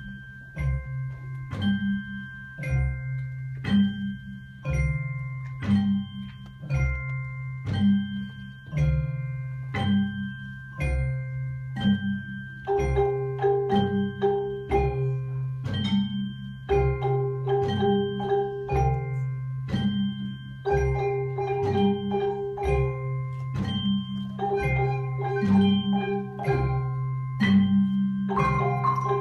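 Children's mallet-percussion ensemble of marimbas and xylophones playing a repeating tune in a steady rhythm of struck, ringing notes over sustained low notes. A further part joins about halfway through, filling out the middle range.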